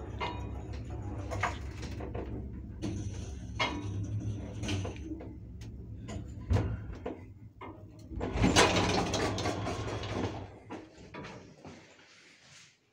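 A 1976 SamLZ passenger elevator travelling, with its 4AN-160 hoist motor giving a steady low hum and clicks and knocks from the car along the way. About eight and a half seconds in the car stops with a thud, the hum ends, and its sliding doors open with a loud rattling rush.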